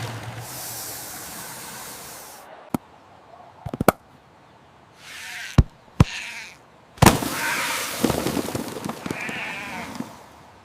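A few sharp cracks and pops. From about seven seconds in there is a noisy stretch with a wavering, bleating call near the end.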